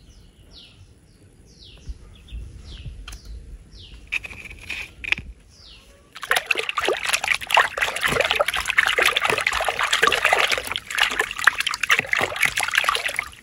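A hand swishing and splashing about in a plastic tub of water. It is quiet at first, then loud and continuous from about six seconds in.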